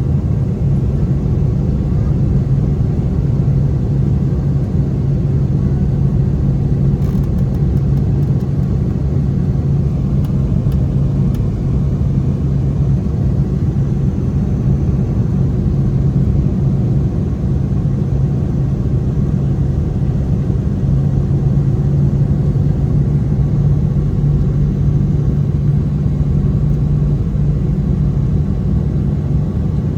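Airbus A320 jet engines and airflow: a steady, loud, low drone with a constant hum that holds level throughout.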